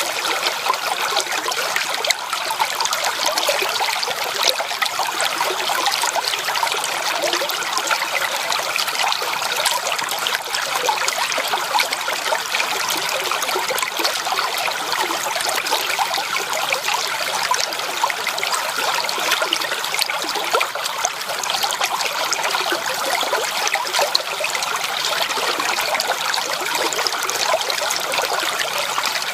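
Shallow creek water trickling and babbling steadily over stones, an even, continuous flow.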